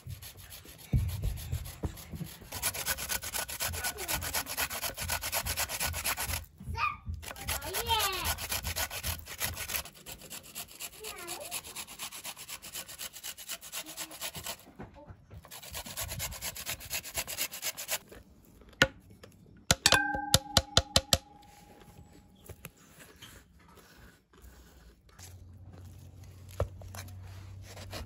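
A carrot scraped against a flat metal hand grater in rapid, rhythmic rasping strokes. About two-thirds of the way through there is a quick run of about ten sharp clicks.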